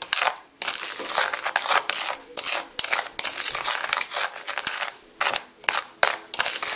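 Metal spoon stirring granulated sugar and spices in a plastic bowl: a run of gritty scraping strokes with short pauses between them, as the cinnamon-sugar coating is mixed.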